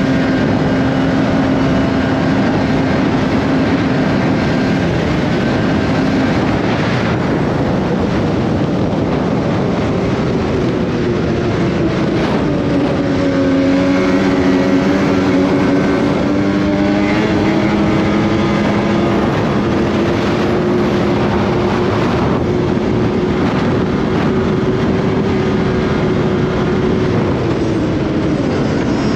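Snowmobile engine running hard along a trail. It holds a steady pitch at first, dips and climbs again about halfway through, then holds a higher note.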